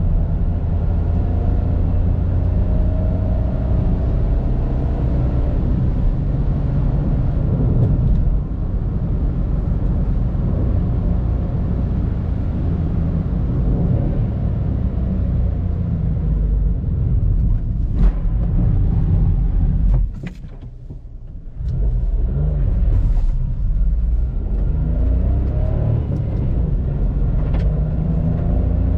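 Mitsubishi Space Star's 1.2-litre three-cylinder MIVEC petrol engine heard from inside the cabin, pulling the car along at road speed over tyre and road noise. About twenty seconds in, the engine note drops away for about a second and a half, then picks up again and rises.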